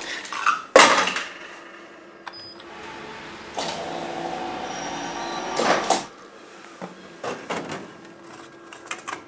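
Necta Canto coffee vending machine at work: a sharp clunk about a second in, then a motor running steadily for about two and a half seconds that ends in a louder rush, followed by a few light clicks.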